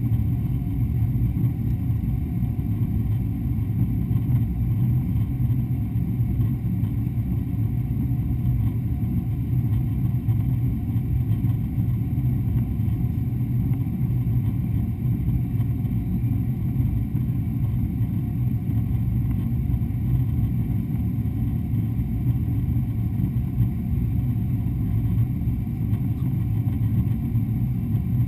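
Steady low rumble inside the cabin of a Boeing 777-200 in flight: engine and airflow noise.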